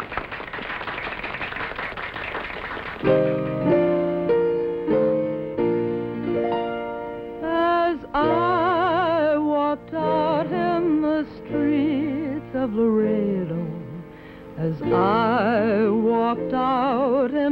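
Audience applause dies away, then piano chords begin about three seconds in and a woman starts singing a slow song with vibrato about seven seconds in, the piano accompanying her.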